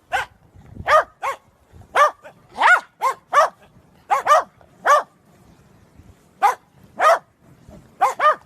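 Dog barking repeatedly: about fourteen short, high barks in irregular groups, some in quick pairs.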